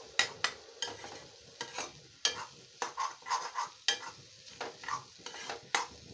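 A metal spatula scraping and clinking against a metal kadhai as scrambled egg bhurji is stirred, in irregular sharp strokes several times a second. A faint sizzle of frying runs underneath.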